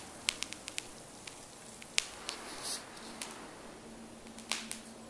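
Freshly poured molten aluminum crackling and popping as it cools in the mold, sharp ticks coming quickly in the first second and then scattered. The caster thinks this bubbling comes from too much borax used for degassing. A faint steady hum sets in about a second and a half in.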